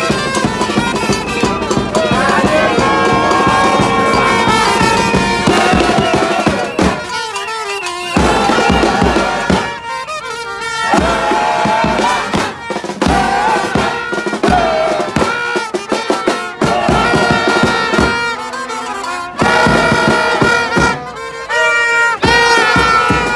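Brass horns playing a tune in a marching crowd, mixed with blown plastic vuvuzelas and whistles. The playing breaks off briefly a few times.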